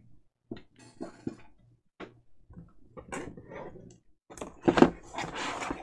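Handling a laptop power brick and its cord: scattered light clicks and taps, then from about four and a half seconds a louder crinkling rustle of plastic packaging wrap.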